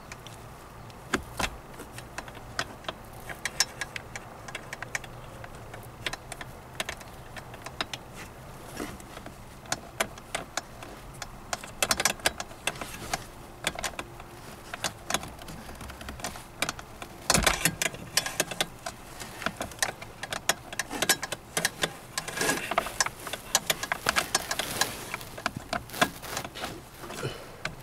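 Irregular clicks, taps and rattles of hand work fastening the bolts of a car's heater blower fan behind the glovebox: metal fasteners and tools against the plastic housing. The clicks come thicker near the middle, with the loudest knock about 17 seconds in, and again in a dense run near the end.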